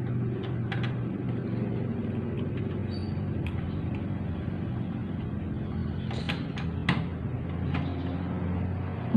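Handling noise: a few scattered clicks and light knocks, several close together about six seconds in, over a steady low hum, as a mechanical keyboard is being connected to a computer to switch it on.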